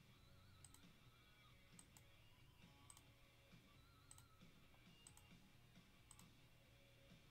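Near silence with faint computer mouse clicks, about one a second: the list randomizer's button being clicked over and over.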